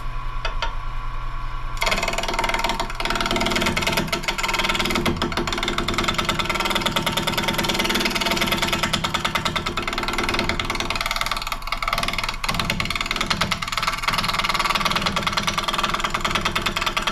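Wood lathe running, then from about two seconds in a carbide turning tool cutting into a spinning maple bowl blank: a rough scraping with a fast rhythmic chatter as the tool meets the uneven, out-of-round blank to true it.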